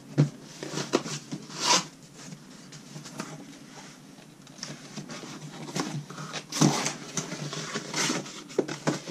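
A long cardboard shipping box being handled and shifted on a tabletop: scattered knocks, rustles and scrapes of cardboard, with a sharp knock right at the start and a heavier thump about six and a half seconds in.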